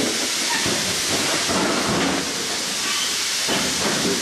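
A steady, loud hiss that does not change over the whole stretch, with a few faint brief knocks underneath.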